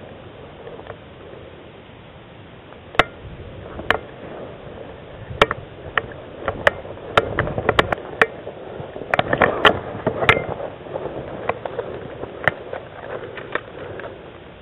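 Dry brush, grass and clothing rustling as the wearer pushes through low vegetation, with scattered sharp snaps and clicks, most of them in the middle of the stretch.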